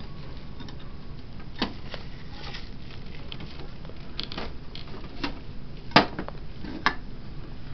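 Scattered light taps and clicks of plastic dolls being moved and set down on a dollhouse floor, the sharpest click about six seconds in.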